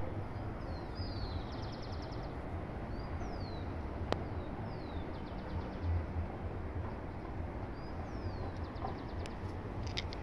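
A small songbird singing the same short phrase three times: a couple of falling whistled notes followed by a fast trill. Under it is a steady outdoor background with low wind rumble on the microphone.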